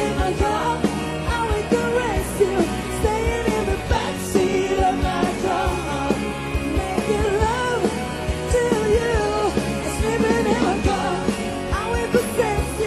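Live rock band playing: a sung lead vocal over electric guitar, keyboards and drums with a steady beat.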